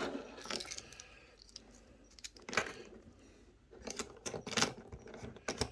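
Small metal clicks and scrapes of a soldering tip being fitted and screwed back onto a gas soldering torch: a few separate clicks, then a quick cluster of them about four seconds in.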